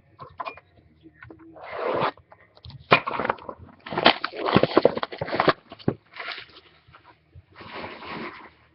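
Crinkling and tearing of packaging as trading-card boxes are unwrapped and opened, in about five bursts of crackling rustle.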